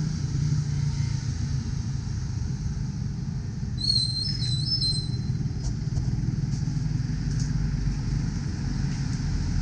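Steady low rumble of roadside outdoor background noise, with a short high whistling chirp about four seconds in.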